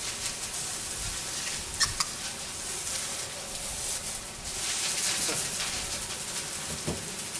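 Steady hiss and patter of water from a soft-wash hose, spraying onto the tile roof and running onto the wet patio, with a couple of sharp clicks about two seconds in.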